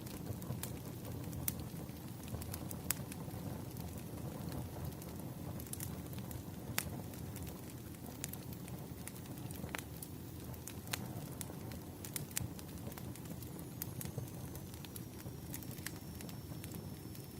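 Wood fire burning with a steady low rumble and irregular sharp crackles and pops from the burning logs. A faint thin high whistle, sliding slightly down, comes in near the end.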